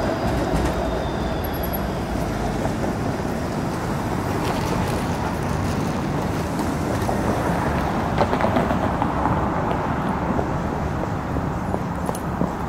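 Steady city street traffic noise. The running sound of a Bombardier Flexity streetcar fades out in the first second or two as it pulls away.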